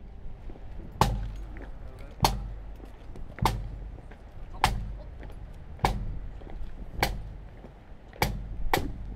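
Sharp, evenly spaced beats at a slow steady pace, about one every 1.2 seconds, coming closer together near the end, over a faint low background murmur.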